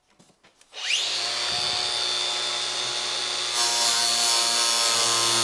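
Cordless Makita angle grinder with a homemade pressed toilet-paper disc spinning up with a rising whine about a second in, then running steadily. From about three and a half seconds in, the disc grinds into a styrofoam block and adds a harsher, scratchier noise over the motor's whine.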